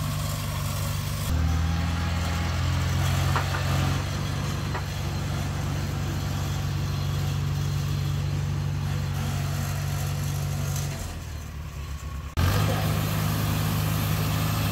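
1950 Farmall Cub tractor's four-cylinder flathead engine running steadily at low speed. It goes briefly fainter about eleven seconds in, then comes back suddenly at full level.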